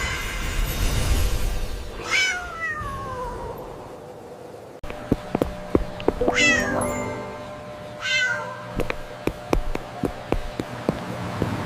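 A cat meowing three times, each a drawn-out call that slides down in pitch, over background music. Quick sharp taps sound in between, in the middle of the stretch.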